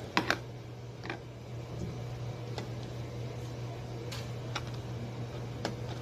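Clicks and knocks of a stand mixer and its stainless steel bowl being handled, then a plastic bowl tapping against the steel bowl. Two loud clicks come a fraction of a second in, followed by scattered lighter taps, over a steady low hum.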